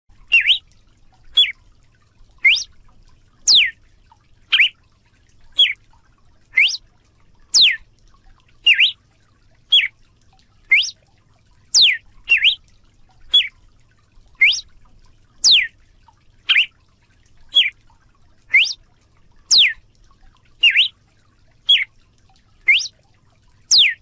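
Galo-de-campina (Paroaria cardinal) singing a steady series of short, clear whistled notes, about one a second, alternating upward- and downward-slurred notes.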